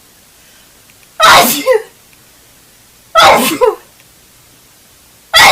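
A girl sneezing in a fit: two loud sneezes about two seconds apart, each a sharp blast of breath ending in a short falling vocal 'choo'. A third sneeze begins right at the end.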